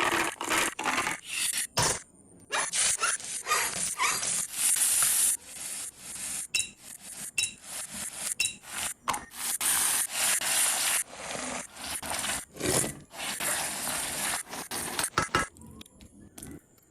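A metal utensil scraping and clinking against cookware in quick, irregular strokes, as when stirring and tossing food in a pan, stopping shortly before the end.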